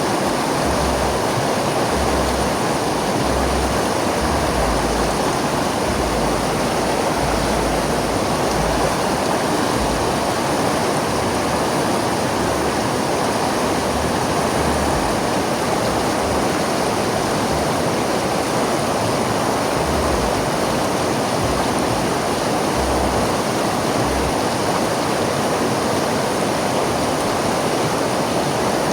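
River water flowing and rushing steadily, with low rumbling patches in the first half.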